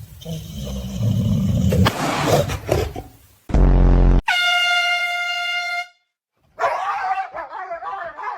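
Dog noises cut together with loud meme sound effects. Rough growly dog sounds come first, then a short, very loud low buzz about three and a half seconds in, followed at once by a steady horn blast lasting about a second and a half. After a sudden silence, more wavering dog sounds come near the end.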